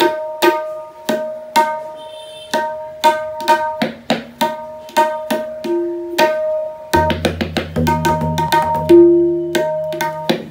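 Tabla being played: rapid finger strokes on the dayan, each ringing at the same tuned pitch. About seven seconds in, the metal bayan's deep bass tone joins under them.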